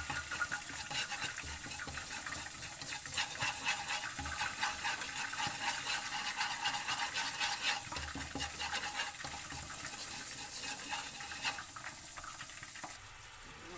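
Minced aromatics sizzling and crackling in hot oil in a nonstick wok as they are stirred with chopsticks. The sizzle stops abruptly near the end.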